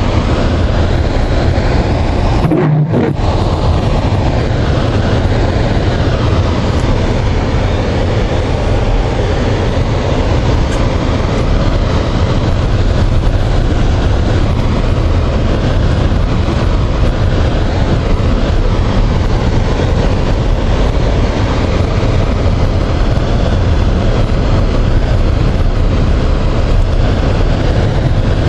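Steady road and engine rumble of a car driving, heard from inside the cabin, with a brief dropout about two and a half seconds in.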